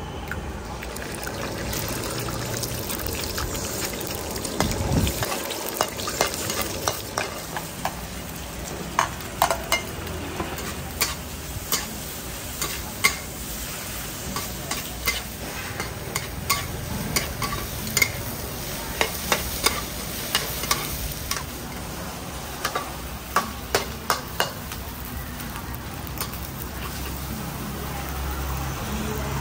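Fried rice stir-frying in a steel wok: a steady sizzle, with frequent sharp clanks of the metal spatula scraping and striking the pan.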